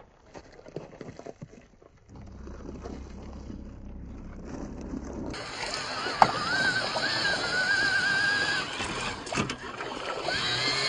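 Electric motor of a radio-controlled scale crawler truck whining as it drives through shallow creek water, with a sharp knock about a second after it starts. In the first half, before this, the sound is quieter, with light crunching on loose gravel.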